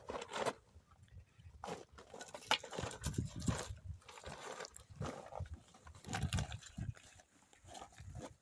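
Footsteps scuffing and crunching on dry, stony ground, with irregular rustles and small knocks as someone moves about among the rocks and bends down.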